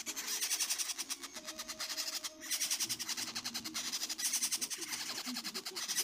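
Nestling parrots begging while being hand-fed: a rapid, raspy pulsing of calls, with a brief break a little past two seconds in.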